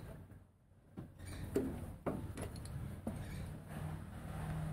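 Faint clicks and knocks of a steel tap being handled and set into a mini lathe's three-jaw chuck, about five separate knocks over a low steady hum.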